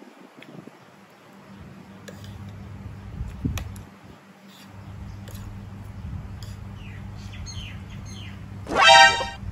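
Birds chirping faintly over a low steady hum, with a few light clicks of a spoon on a plate. A short, loud pitched call about nine seconds in.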